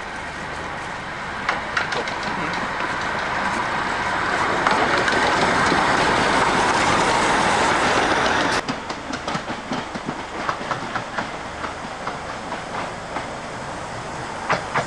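A 15-inch gauge steam locomotive passing close on the adjacent track: a loud rush of noise swells up and holds steady, then cuts off abruptly about eight and a half seconds in. Quieter running follows, with many short clicks like wheels going over rail joints.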